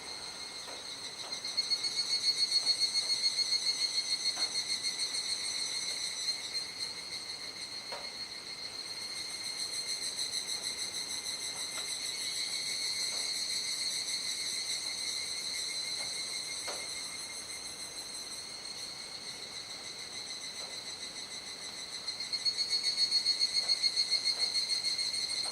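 Chorus of cicadas calling at dusk: a steady, high, pulsing trill that swells louder for a few seconds about two seconds in and again near the end.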